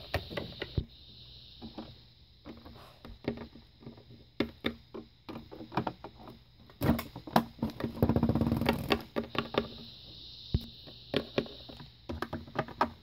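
Plastic toy figures and playsets being handled and set down on a hard floor: a scatter of short clicks and knocks, with a longer, louder stretch of rattling and scraping about eight seconds in.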